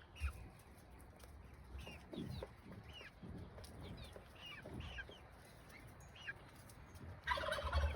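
Chickens clucking softly with many short, falling chirps scattered throughout.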